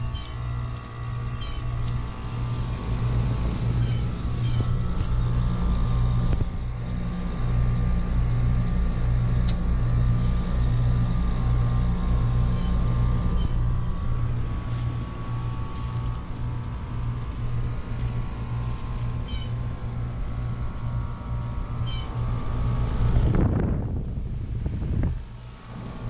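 American Standard Silver Series heat pump outdoor unit running in defrost with a steady compressor hum. About three seconds before the end a loud refrigerant whoosh rises and falls as the reversing valve shifts to end the defrost, and then the sound drops off suddenly.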